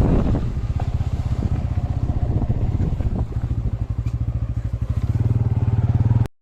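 Motorcycle engine running with a fast, even pulse. It eases off around the middle, picks up again near the end, then cuts off suddenly.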